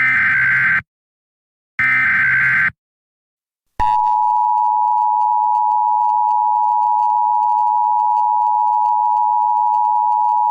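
Emergency Alert System SAME header: two short bursts of the buzzy digital data signal, each about a second long, that close out the header. About four seconds in, the steady two-tone EAS attention signal begins and holds.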